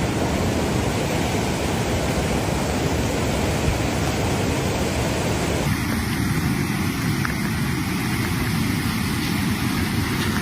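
Steady rushing noise of fast-flowing floodwater, changing abruptly in tone a little over halfway through.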